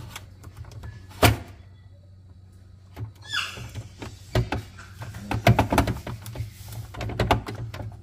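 Plastic clicking, scraping and knocking as a Samsung refrigerator's water filter cartridge is gripped and twisted in its housing, stuck and hard to turn out. One sharp knock about a second in, a short scrape a little after three seconds, then a run of clicks and knocks in the second half.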